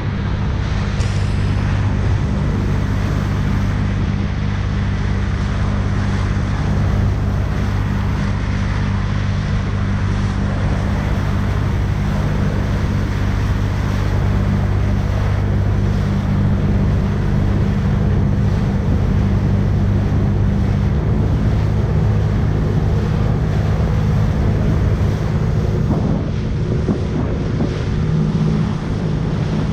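Jet ski engine running steadily while under way, with water rushing past and wind buffeting the microphone.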